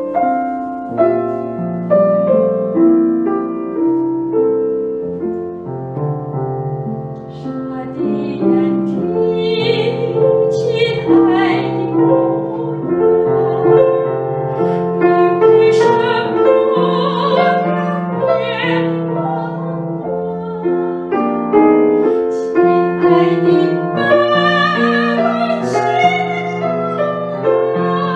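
Grand piano playing the introduction to an Indonesian folk song. About seven seconds in, a woman's voice enters, singing the melody with vibrato over the piano accompaniment.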